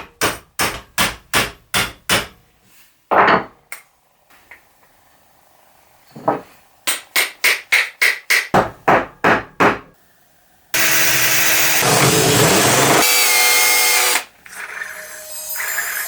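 Woodworking tool strokes, about three a second, in two runs, with one louder stroke between them. A power tool then runs steadily for about three seconds and stops abruptly.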